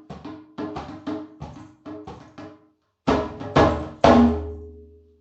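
Music with quick percussive hits over a sustained bass. After a short break about halfway through, three heavy accented hits ring out and fade away, ending the music.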